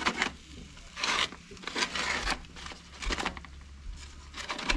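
Disposable aluminium foil pan crinkling and scraping in about five short bursts as potatoes are stirred in it on a grill.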